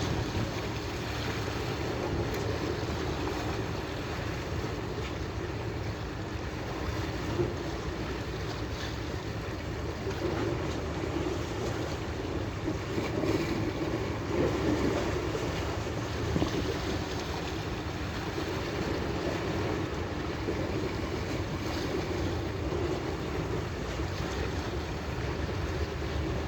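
Steady wind and water noise aboard a fishing boat out at sea, a continuous rumbling hiss with a few small knocks.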